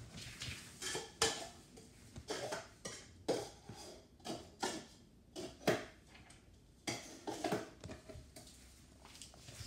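Plastic cups clattering and knocking together as they are handled, a string of light, irregular clacks, the sharpest about a second in and near the middle.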